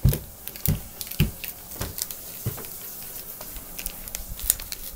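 Handling noise of a phone being carried: irregular clicks and knocks, with a few heavier thumps in the first second and a half.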